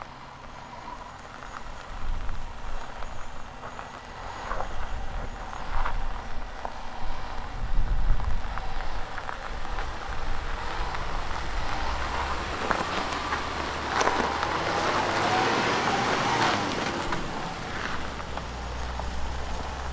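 Range Rover L405 crawling slowly over a rocky dirt trail: a low engine rumble, with tyres crunching and popping over gravel and stones. The crunching is heaviest in the second half, as the wheels pass close by.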